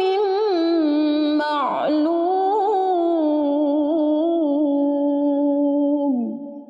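A woman reciting the Quran in murottal style in maqam bayyati, drawing out the words "mīqāti yawmin ma'lūm" in one long, ornamented melodic phrase. The phrase ends with a falling note about six seconds in.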